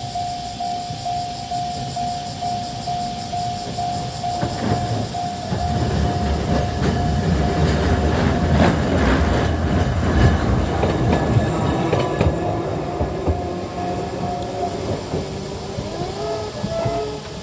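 A level-crossing alarm rings a steady, rapidly repeated bell tone while Kagoshima City Tram car 9508 rumbles across the crossing, its wheels clicking over the rails, loudest in the middle. The bell stops about fifteen seconds in, and a rising whine follows near the end.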